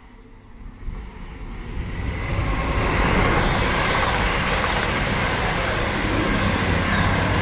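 Pair of Class 220 Voyager diesel-electric multiple units passing through a station at speed. The sound of wheels and underfloor diesel engines builds over the first three seconds and stays loud as the train runs by, with a steady low engine drone near the end.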